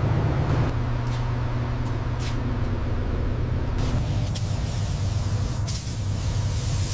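A motor running steadily with a low hum, with a few brief clicks over it.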